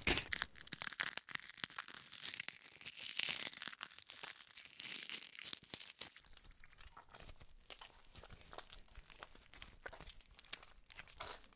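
Faint crackling and crinkling noise made of many small clicks with short hissy swells, busy for the first six seconds, then thinning to scattered faint clicks.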